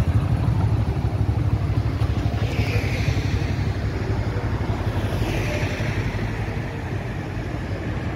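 Wind buffeting the phone's microphone while riding on the back of a two-wheeler through night traffic, over the steady running of its engine. Two fainter swells from passing traffic come about two and a half and five seconds in.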